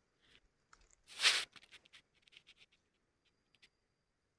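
A quiet moment with no saw running: a short rustling swish about a second in, among faint scattered clicks and taps.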